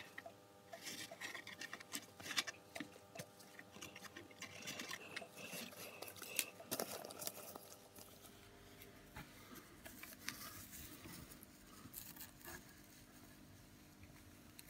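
Lightweight sand poured from a plastic bag into a clear plastic ant farm: a dense patter of tiny ticks and rustles, growing sparser and quieter after about eight seconds.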